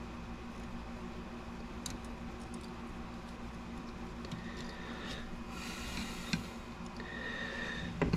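Quiet room tone with a steady low hum and a few faint light clicks and rustles from handling tweezers over a plastic model truck.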